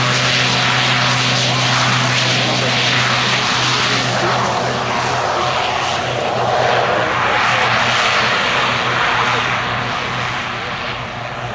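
Shorts Tucano T.1's turboprop engine and propeller running at power on the runway. A steady low drone for the first few seconds gives way to a broader rushing noise that eases off slightly toward the end.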